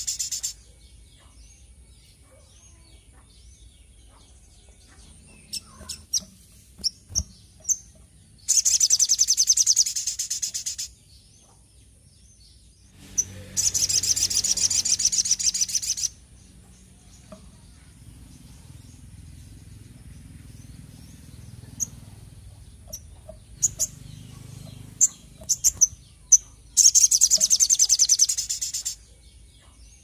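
Caged sunbird (sogok ontong) singing: three loud bursts of rapid high twittering, each two to three seconds long, with scattered single chirps between them.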